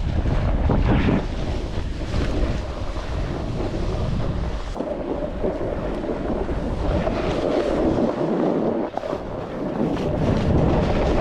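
Wind buffeting a helmet or body-mounted camera's microphone while snowboarding, a continuous loud rush with a brief lull near the end.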